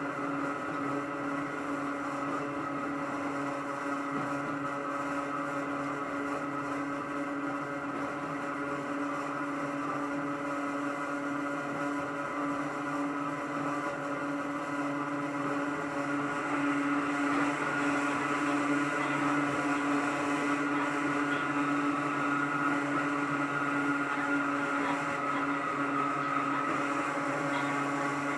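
Hakone Tozan Railway Mo 1 electric car running, heard from on board: the steady whine of its nose-suspended (tsurikake) traction motors and gearing over the rumble of the wheels on the track, getting a little louder about halfway through.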